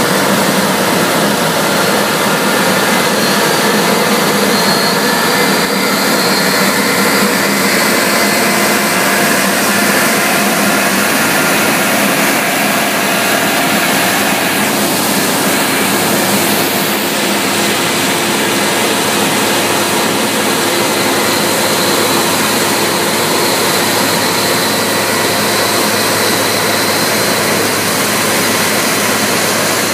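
New Holland combine harvester working close by, cutting wheat: the engine and threshing machinery run with a loud, steady noise.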